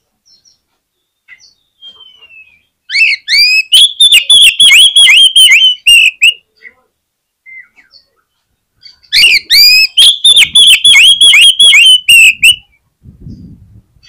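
Oriental magpie-robin (kacer) singing in full, vigorous song. Two loud bursts of a few seconds each, made of rapid repeated downslurred whistled notes, with faint scattered chirps between them.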